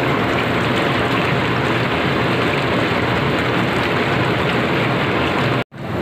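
SH808 outdoor jacuzzi with its jets running: a steady rush of churning, bubbling water. The sound cuts out for a split second near the end.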